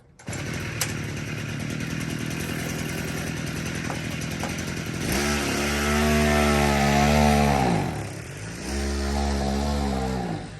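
Small two-stroke engine of a motorized bike running with a fast buzzing pulse, then revved hard from about halfway, easing off briefly near the end and revving up again. The carburetor is still out of tune.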